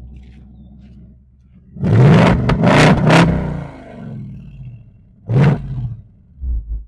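2025 Ford Mustang GT's 5.0-litre V8 in Normal exhaust mode, revved in quick blips. The first is a long burst about two seconds in, with the pitch falling back afterwards; a shorter one comes past halfway and a small one near the end.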